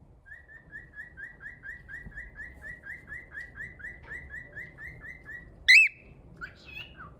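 Cockatiel chirping: a quick, even series of short rising chirps, about four a second, then one loud shrill call near the end followed by a few varied chirps.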